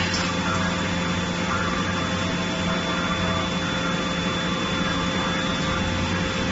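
Steady hum of forging-line machinery with a thin, constant high whine on top; the forging hammer does not strike.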